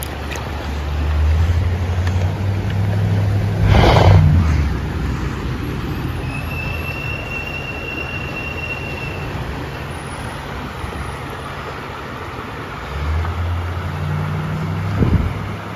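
Shallow river water running as a large rainbow trout is held at the surface for release, with a loud splash about four seconds in. A low rumble comes and goes at the start and near the end, and a thin steady whistle-like tone lasts about three seconds midway.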